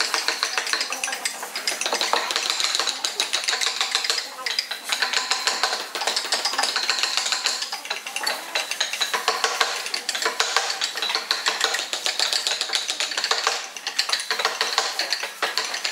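Fine steel carving tool scraping and picking at hardwood in quick, closely spaced little strokes, making detail cuts in a small relief carving.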